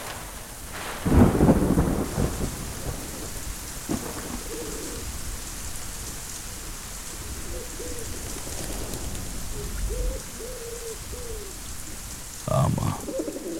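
Heavy rain pouring steadily onto a yard, with a rumble of thunder about a second in. Partway through, a pigeon coos several times over the rain.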